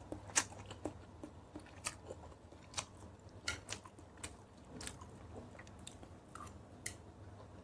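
A person chewing and biting food close to the microphone while eating kimchi noodles, fried eggs and kimchi. Irregular wet smacks and small crunches come every half second or so, the sharpest about half a second in.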